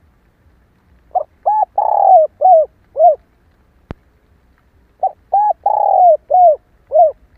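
Hen spotted dove cooing: two phrases, each of five notes (two short notes, a long drawn-out third note that falls in pitch, then two short notes), about three seconds apart. A single faint click falls between the phrases.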